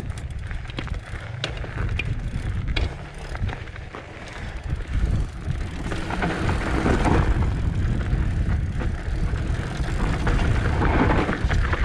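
Trek Roscoe 8 hardtail mountain bike rolling down a loose dirt and gravel trail, its tyres crunching over the gravel with a few sharp ticks. Wind rumbles on the camera microphone throughout, and the noise grows louder about halfway through.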